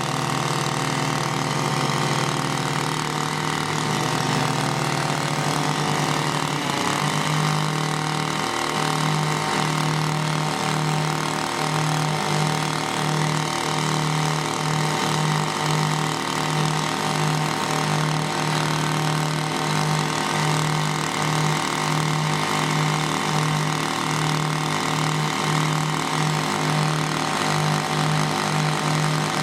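Engine of a portable diamond core drilling rig running steadily. Its pitch shifts for a few seconds early on, and from about 8 s a low hum pulses regularly, a little faster than once a second.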